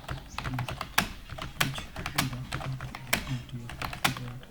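Computer keyboard typing: a fast, uneven stream of keystrokes, several per second, as a passage is typed in a timed English typing-speed test.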